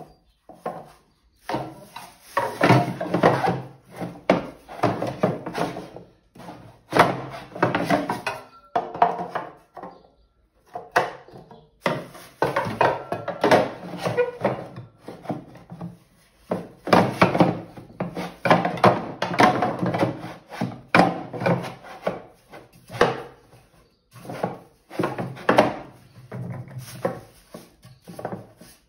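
The two halves of a plastic pottery-wheel splash pan rub, scrape and knock against each other and the wheel as they are pushed and fitted together by hand. The sound comes in irregular stretches with short pauses.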